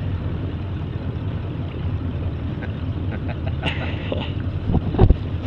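Ski boat's inboard engine running steadily, a low drone with wind and water noise, and a loud thump about five seconds in.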